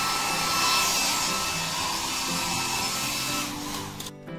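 Small hand-held hair dryer blowing steadily while drying a Labrador puppy's damp coat, its sound dropping away briefly about four seconds in.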